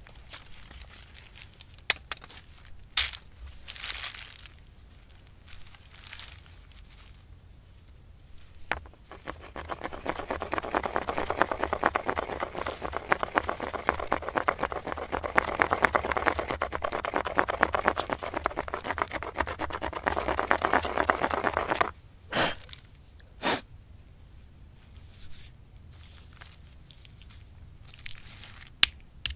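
A stone pestle ground round and round in a bedrock granite mortar hole: a continuous gritty scraping of stone on stone for about twelve seconds in the middle, scouring dirt and loose grit out of the hole before acorns go in. Scattered light clicks and rustles come before it, and two short, louder scrapes just after it stops.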